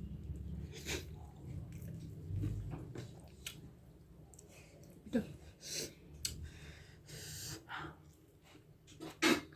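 Close-up chewing and wet mouth smacks from eating soft dhido with curry gravy. Short sharp clicks come at irregular moments, and the loudest cluster is about nine seconds in.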